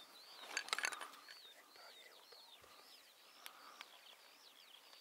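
Faint, distant calls of a flock of wild geese: a steady run of high yelping calls, each rising and falling, overlapping one another. A short rustle comes about a second in.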